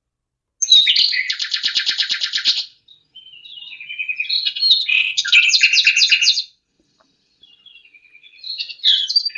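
A lark singing: three phrases of rapid, high trills and warbled notes with short pauses between them.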